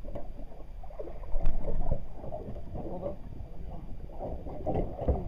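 Low rumbling handling and wind noise on a handheld microphone aboard a small fishing boat, with a louder knock about a second and a half in.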